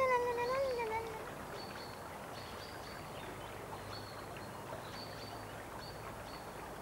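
A drawn-out, wavering animal cry trails off in the first second. It is followed by faint outdoor ambience with soft, short, high bird chirps.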